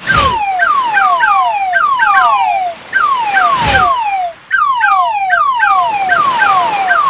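Cartoon-style crab sound effect: a rapid series of short chirps, each sliding down in pitch, in quick runs with brief gaps. A whoosh comes near the start and another a little over halfway through.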